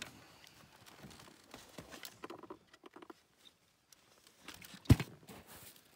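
Soft rustles and small scrapes of someone handling gear on the snow-covered ice, with a sharp knock about five seconds in, louder than anything else.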